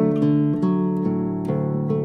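Calm instrumental background music of an acoustic guitar picking notes, a new note about every half second, each ringing on under the next.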